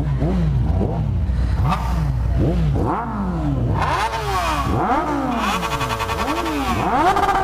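Several four-cylinder sport motorcycles revving hard, again and again, with engine pitch rising and falling in quick overlapping sweeps. The revs climb higher and more bikes join in from about four seconds in.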